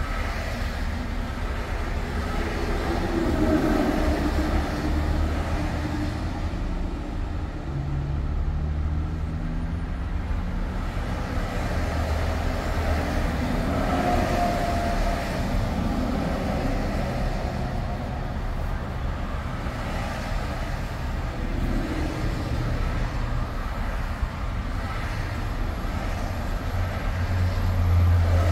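Car driving at highway speed: steady road rumble with an engine hum that shifts in pitch, swelling slightly near the end.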